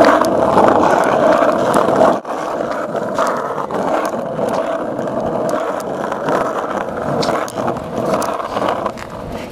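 BMX bike riding: a steady scraping rush as the bike rides along a concrete ledge, cutting off about two seconds in. After that, a quieter rolling of tyres on asphalt with scattered clicks.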